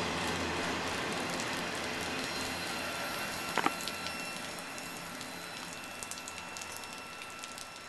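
Autorack freight cars rolling past on the rails, the steady wheel noise fading as the last cars go by. A sharp double clack about three and a half seconds in, and light scattered ticking near the end.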